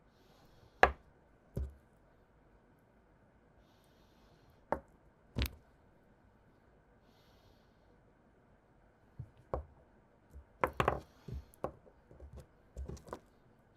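Small objects being handled and set down on a hard surface: sharp knocks and clicks, two near the start and two around five seconds in, then a busier run of taps and clatter in the last few seconds.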